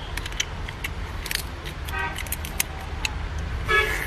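Mouth clicks, smacks and sucks of someone eating cooked lobster, pulling the meat from the shell. Two brief pitched toots come about two seconds in and near the end, over a steady low rumble.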